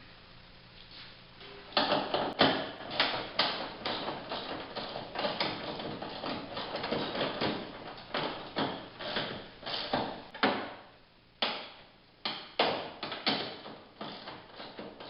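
Hand tools at work on the tailgate hardware's nuts and bolts: a quick, uneven run of sharp clicks and knocks, with a short pause a few seconds before the end.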